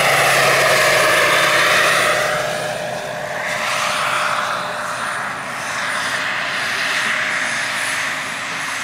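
Turbine-powered RC model helicopter (a large-scale Bell 412 with a Jakadofsky 5000 gas turbine) flying past: a steady turbine whine over the rotor's noise. The whine dips in pitch and drops in loudness after about two and a half seconds, then its pitch rises again.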